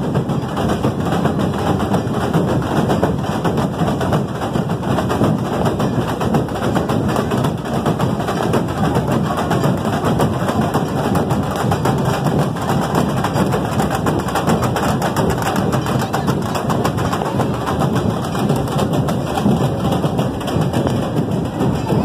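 Festival street drum band beating a fast, dense, continuous drum rhythm, with the hubbub of a large crowd.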